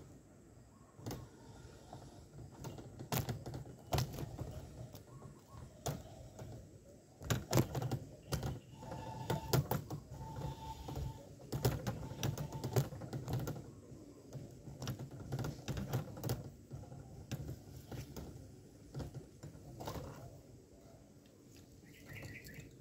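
Irregular clicks, rattles and scrapes of a wire bird trap being handled, with rustling.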